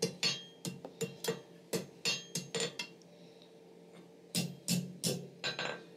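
Hand hammer striking a glowing steel bar on the anvil, curling its end into a larger scroll: a quick run of about a dozen ringing blows, a pause of about a second and a half, then about five more.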